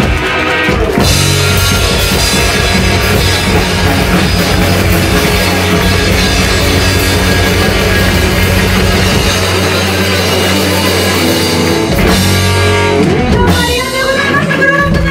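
Live rock band playing loudly: drum kit, electric guitars and electric bass, with sustained low bass notes that break off about twelve seconds in.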